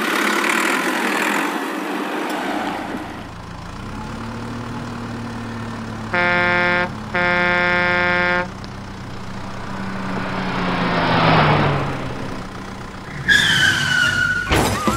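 Cartoon toy-vehicle sound effects: a motor vehicle engine running steadily, with two horn honks about six seconds in, the second longer than the first. A swelling whoosh follows, and a short falling whistle near the end.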